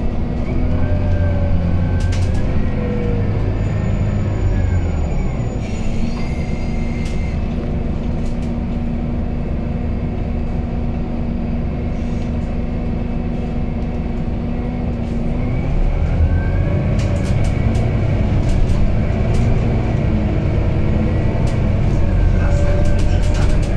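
Interior of a Scania Citywide 12LF CNG city bus: its 9.3-litre Scania OC09 natural-gas engine and ZF EcoLife automatic gearbox running, with a whine that rises and falls in pitch twice, a steady hum in between, and small rattles and clicks from the cabin fittings.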